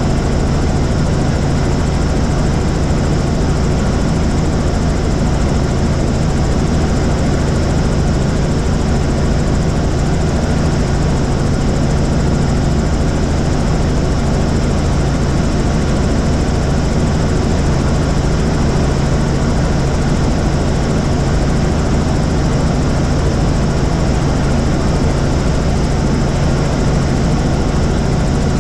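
Tour helicopter in flight, heard on board: the steady drone of the engine and rotor, loud and unchanging throughout.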